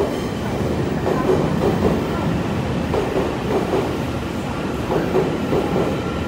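Taiwan Railway commuter electric train moving along the platform, its wheels clacking over the rail joints in a steady repeating rhythm over a low rumble, with a faint steady whine above.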